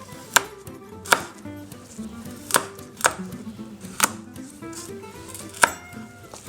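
Knife cutting broccolini (bimi) florets on a cutting board: about six sharp, unevenly spaced chops against the board.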